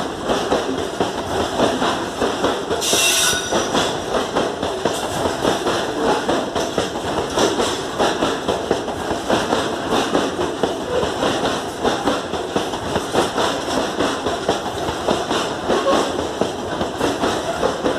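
Wagons of a loaded grain freight train rolling past close by: steady clatter and rumble of the wheels over the rails, with a brief high-pitched screech about three seconds in.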